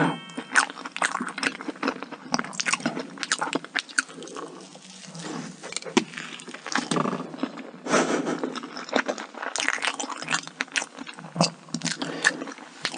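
Close-miked mukbang eating sounds: biting into and chewing cake, with many small sharp mouth clicks, a little quieter around the middle.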